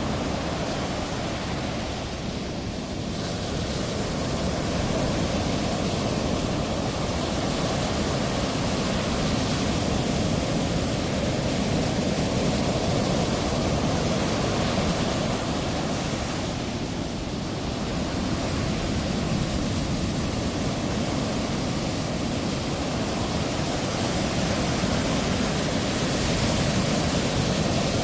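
Ocean surf: a steady rushing of breaking waves and whitewater, swelling and easing slightly.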